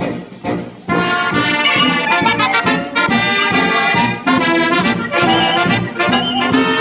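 Brass band music, with trombone and trumpet to the fore, playing the accompaniment to a circus elephant act in short phrases of held notes.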